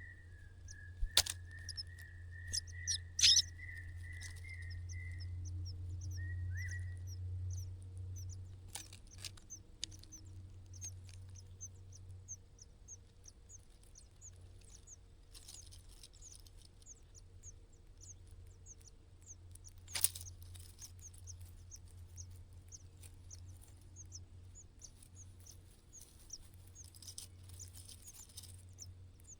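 Small birds cheeping: many short, thin, high chirps repeating quickly, with a wavering whistled note over the first several seconds. A few sharp clicks and a steady low hum lie underneath.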